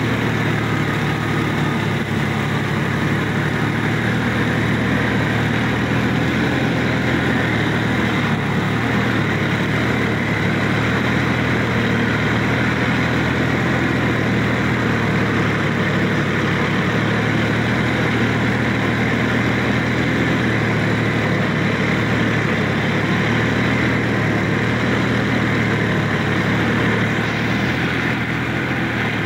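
A Sonalika DI-50 RX tractor's diesel engine running steadily as the tractor is driven over wet ground, heard close up from the driver's seat.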